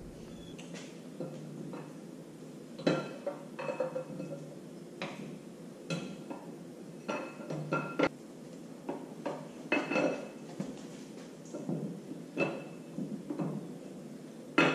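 Irregular metallic clinks and knocks, several with a short ring, as a lubed camshaft is worked into the cam tunnel of a Gen 3 LS engine block.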